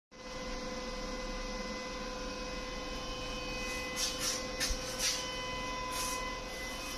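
A steady electrical or machine hum with one clear pitch. From about four seconds in, several short hissing scrapes cut through it.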